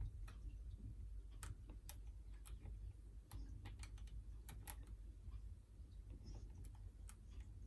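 Faint, irregular light clicks of a hook pick and tension wrench working the pins of a Yale Y121B padlock, its spring-loaded core held in a false set.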